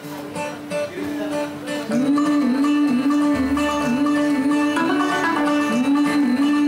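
Music with a plucked-string instrument playing a tune with a wavering, bending melody line, growing louder about two seconds in.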